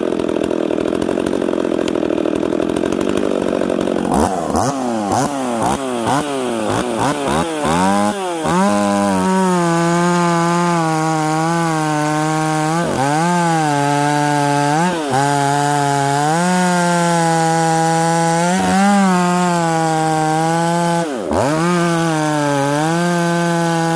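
Husqvarna 44 two-stroke chainsaw idling, then revved in quick blips from about four seconds in, then held at full throttle cutting through a big log. Its note dips briefly a few times under load.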